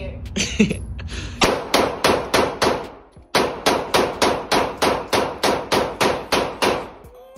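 Handgun fired in quick succession in an indoor shooting lane, about three shots a second, with a short break about three seconds in.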